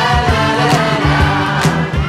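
Pop song playing: a group of voices singing together over a steady drum beat.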